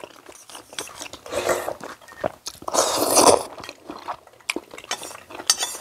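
A person eating oyster noodle soup close to the microphone: chewing and biting, with a few short clicks and two longer noisy stretches, the louder one about three seconds in.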